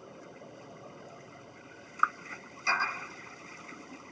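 Water sloshing and splashing as a small wooden boat slides off its trailer into the water at a launch ramp, over a steady low background. Two short, sharper sounds come about two seconds in, the second one louder.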